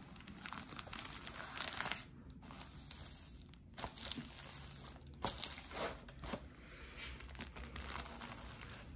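Clear plastic sleeve of a cross-stitch storage album crinkling and rustling under hands pressing and smoothing it, in uneven bouts with a few short pauses.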